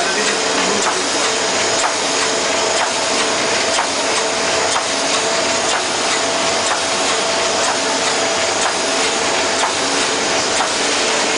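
Envelope making machine, Model 820, running at speed: a steady mechanical clatter with a constant hum and a click about once a second as its cycle repeats.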